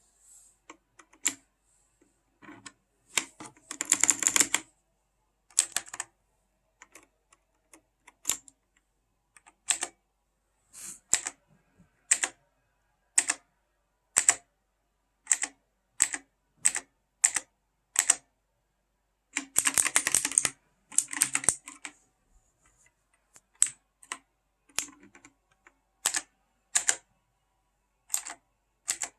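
Keys of a Havit mechanical keyboard being pressed to switch its lighting modes: single keystroke clicks about once a second, with two quick flurries of many keystrokes, one a few seconds in and one past the middle.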